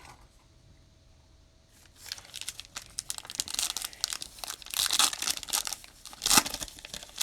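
Foil trading-card pack being torn open and its wrapper crinkled, starting about two seconds in, with the loudest rip a little after six seconds.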